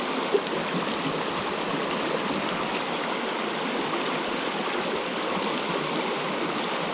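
Mountain stream water rushing steadily over rocks, with one brief tap about a third of a second in.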